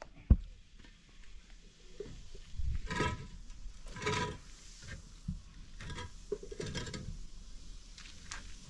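Concrete blocks being laid on a block wall: a sharp knock as a block is set down about a third of a second in, then several shorter scrapes and clinks as blocks are shifted into place.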